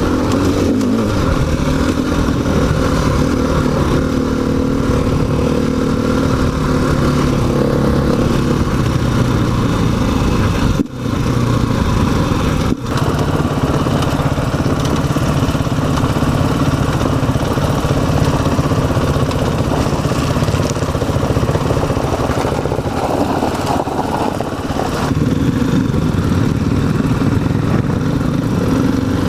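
KTM 500 EXC single-cylinder four-stroke dirt bike engine running under way, its note shifting up and down with the throttle. The sound cuts out briefly twice, about eleven and thirteen seconds in.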